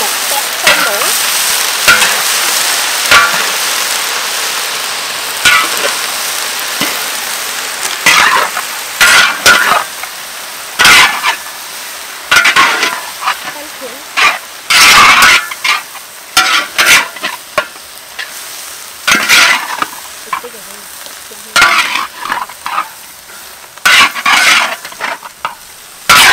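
Shredded cabbage sizzling in a large metal wok, with irregular scrapes of long metal spatulas stirring it against the pan. The sizzle is loudest at first and gradually dies down.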